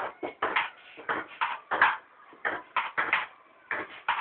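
Table tennis ball being played back and forth: quick sharp clicks of the celluloid ball on the paddles and the table, often in close pairs, about four a second.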